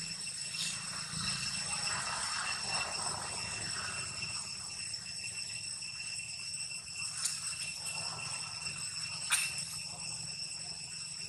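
A steady, high-pitched ringing drone with overtones, with a soft rustle about two seconds in and two sharp clicks near the end, the second the loudest.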